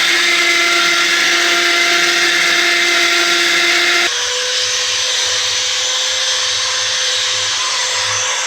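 Electric workshop machine tool running steadily, a motor whir with a strong high hiss and a few thin steady tones. About four seconds in the sound switches abruptly to a different steady whir with one clear tone.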